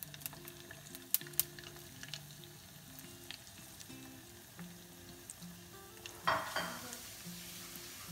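Sabudana tikkis deep-frying in hot oil in a small saucepan: a steady sizzle with scattered crackles and pops. About six seconds in there is a brief, louder burst of hiss. Soft background music with held low notes plays underneath.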